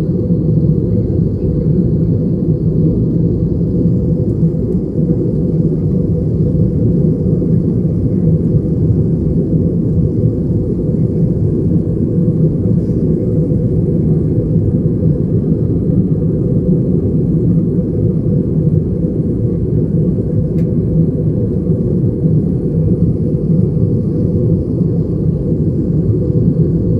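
Steady cabin drone of an Airbus A320-214 airliner in flight: engine and airflow noise heard from inside the passenger cabin, a deep even rumble with a faint high whine over it.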